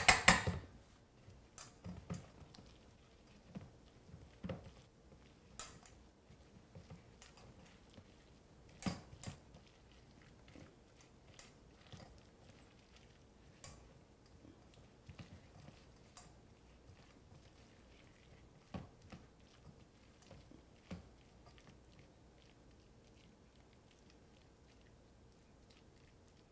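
Soft, wet squishing of steamed broccoli and fritter batter being mashed and stirred in a stainless steel bowl, with scattered light knocks of the utensil against the bowl, the clearest about nine seconds in.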